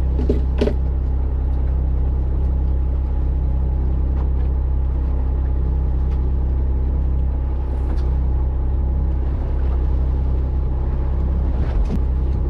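Fishing charter boat's engine idling with a steady low drone, a couple of brief knocks over it near the start and near the end.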